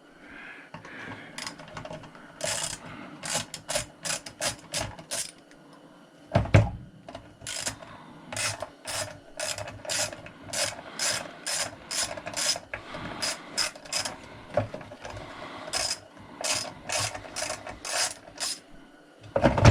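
Ratchet wrench clicking in a long run of short strokes, a couple a second, as a bolt is backed out of a chop saw. A single low thump comes about six and a half seconds in.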